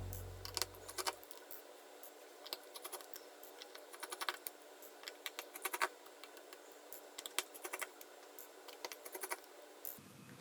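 Scattered light clicks and ticks of a small precision screwdriver working tiny screws out of a smartphone's inner frame, with screws and tool tapping on the work surface.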